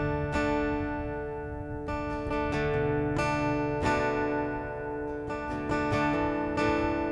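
Music: an acoustic guitar strumming chords, each stroke left to ring.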